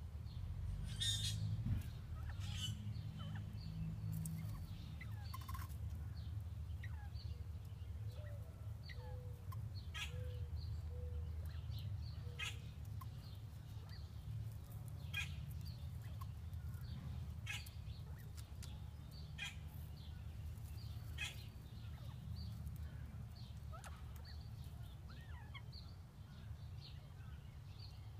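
Northern bobwhite quail scratching and pecking through dry leaves and twigs, making scattered short rustles and scratches, with a few faint soft calls about a third of the way in. A steady low rumble runs underneath.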